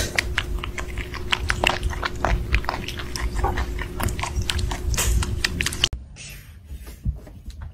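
Newborn kittens suckling at their nursing mother cat, a dense irregular run of wet smacking clicks. It cuts off suddenly about six seconds in, leaving a quieter stretch with a few soft knocks.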